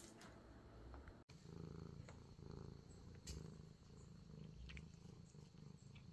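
Faint, low, pulsing rumble that comes and goes in short stretches, with a brief dead-silent gap about a second in and a single sharp click near the middle.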